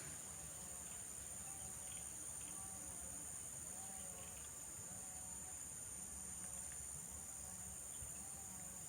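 High, continuous chorus of insects, such as crickets or cicadas, buzzing steadily without a break.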